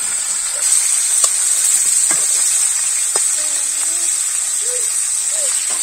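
Catla fish pieces frying in oil in an aluminium karai: a steady sizzle, with a few light clicks.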